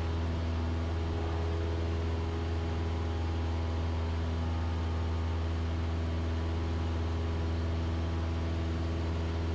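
Cessna 172SP's four-cylinder Lycoming engine and propeller droning steadily during the climb-out after takeoff, a strong low hum with several steady tones above it and no change in pitch or loudness.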